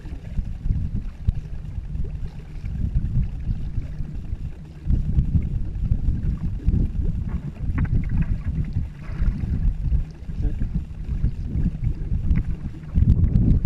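Wind buffeting the microphone with a choppy low rumble, over the water wash and paddle strokes of a two-person racing canoe underway. The wind grows stronger about five seconds in.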